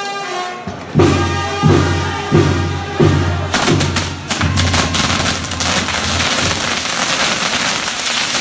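Band music with a steady bass-drum beat. About three and a half seconds in, the castillo fireworks tower ignites with a dense, continuous hissing crackle of sparks and rapid pops that drowns out the band.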